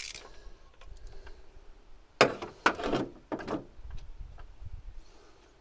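Ratchet and spark plug socket extension knocking and clattering on the car's metal as the old spark plugs come out of the engine: three loud sharp knocks about two to three and a half seconds in, among lighter clicks and tinks of tools and plugs being handled.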